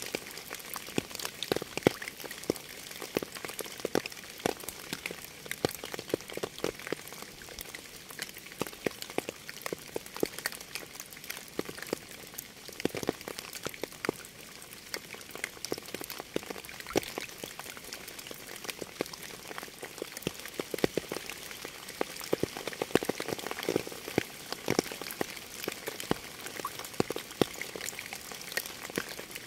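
Steady rain, with many separate drops striking nearby at irregular moments over a continuous hiss.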